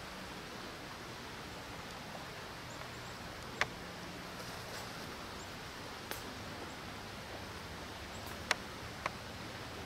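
Faint steady hiss of the open woods with no clear source, broken by four brief sharp ticks, the first about three and a half seconds in and two close together near the end.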